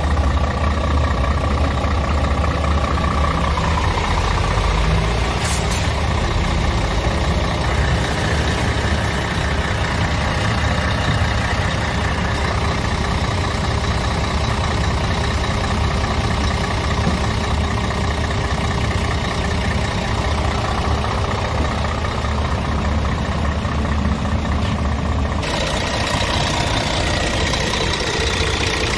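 Scania R truck's Euro 6 diesel engine idling steadily, heard close up with the cab tilted and the engine bay open. The sound changes abruptly near the end.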